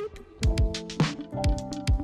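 Background music with a beat: deep kick drums, sharp snare-like hits and held chords.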